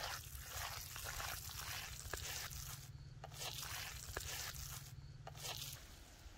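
Faint wet squelching and soft scraping of hands kneading raw chicken mince filling with seasonings in a glazed clay bowl.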